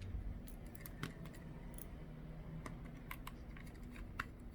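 Faint, irregular small clicks and ticks of a precision screwdriver and small plastic and metal parts being handled while a screw is fitted to secure a tablet's loudspeaker.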